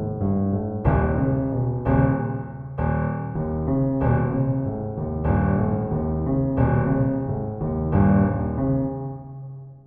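Solo piano music: slow chords struck about once a second, each left to ring and die away, fading out at the very end.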